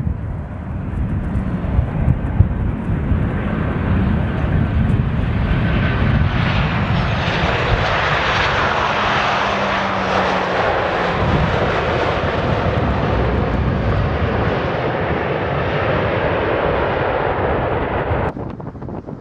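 Jet airliner engines: a broad rushing noise that swells over several seconds and then holds loud and steady, with faint thin tones in it. Wind rumbles and buffets on the microphone throughout, and the sound cuts off abruptly near the end.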